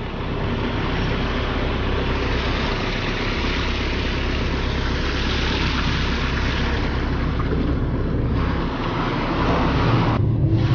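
Heavy machinery running steadily, a loud rushing noise with a low rumble underneath. The hiss drops away briefly twice near the end, and a deeper rumble with a steady low tone comes in at the close.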